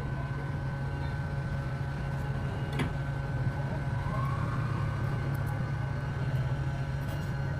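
A steady low mechanical hum, with one light click about three seconds in.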